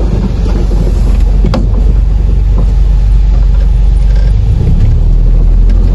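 All-terrain vehicle's engine running steadily under way, a loud, deep rumble, with a single sharp knock about one and a half seconds in.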